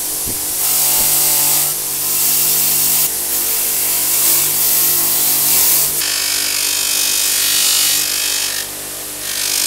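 Bench grinder running, with small brass saw-handle screws pressed against the spinning wheel in several passes of one to three seconds each. Each pass gives a loud rasping hiss over the motor's steady hum.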